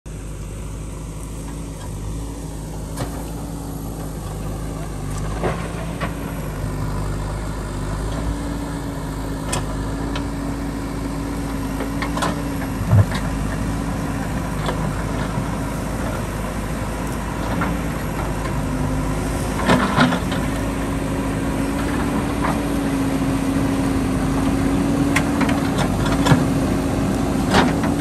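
Diesel engine of a JCB backhoe loader running steadily and slowly growing louder, with scattered sharp knocks throughout.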